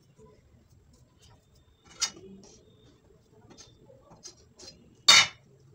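Kitchen utensils knocking while flour is measured: a plastic measuring cup and a table knife tapping against a metal mixing bowl. A sharp knock comes about two seconds in and a louder one about five seconds in, with light ticks between.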